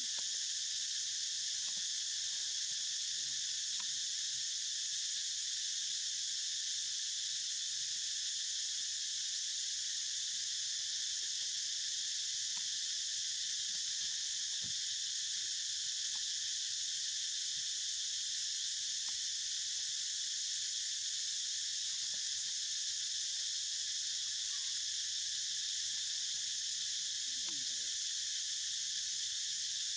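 A steady, high chorus of insects that does not change, with a few faint soft ticks and rustles beneath it.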